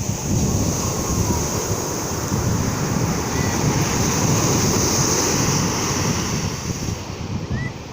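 Sea waves washing onto the shore as a continuous surf; the wash swells to a peak about two-thirds of the way through and eases off near the end.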